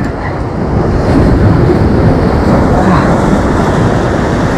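Ocean surf washing against a jetty's concrete blocks, heard as a loud, steady rumble that swells a little about a second in.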